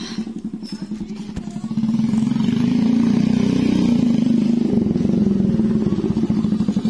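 Honda Astrea Grand single-cylinder four-stroke engine on a custom BMX-framed minibike, running through an aftermarket exhaust as the bike rides up. The engine grows louder about two seconds in as the bike comes close.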